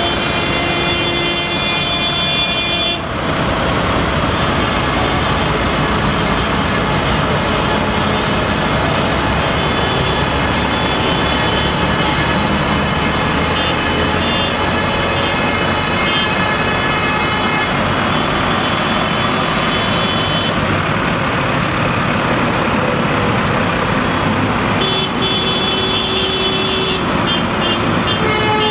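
Convoy of farm tractors with engines running, with horns held and honking at the start, cutting off abruptly about three seconds in, and again near the end.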